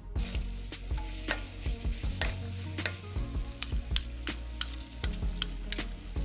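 Metal spatula scraping and clacking against a metal wok in irregular strokes while stir-frying, over a steady sizzle of food frying in oil.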